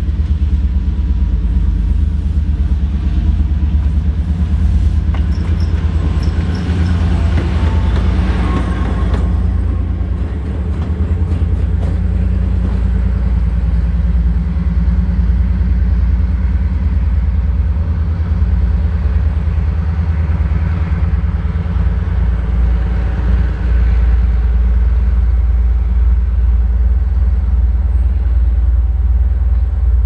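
Two-stroke V12 diesel of a Soviet M62-series locomotive running with a loud, steady, deep rumble, with a brighter swell about eight seconds in as the locomotive passes close.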